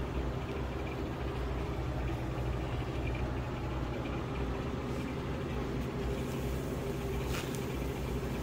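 A steady low mechanical hum, with a light click about seven and a half seconds in.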